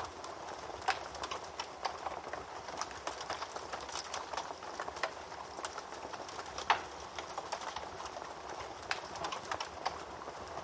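Wood fire crackling in a fireplace: irregular snaps and pops over a soft hiss, with one sharper, louder pop about two-thirds of the way through.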